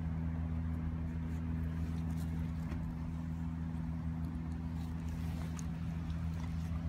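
Steady low mechanical hum, engine-like, with a few faint clicks on top.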